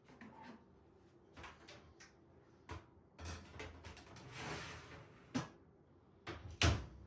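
Household objects being handled: a series of light knocks and clicks, a longer rustling swell in the middle, and a sharper knock near the end.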